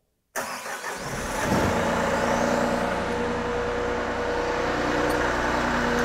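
Wacker Neuson SW20 skid steer loader's engine cranking on the starter and catching about a second in, then running steadily.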